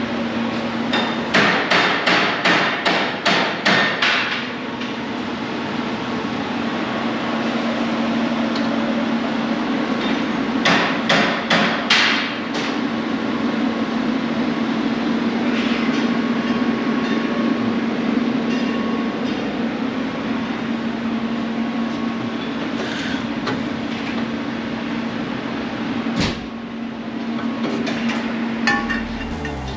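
Two quick runs of hammer blows on metal, about three strikes a second, the first of about eight strikes and the second, some seven seconds later, of four or five, with a few single knocks afterwards. A steady machine hum runs underneath.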